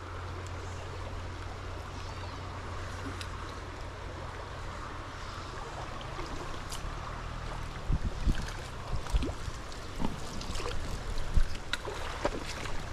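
Stream water rushing steadily over riffles. From about eight seconds in, a handful of low thumps knock on the microphone.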